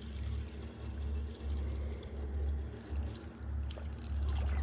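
A steady low rumble, with faint ticks from a spinning reel being cranked as a hooked crappie is reeled in.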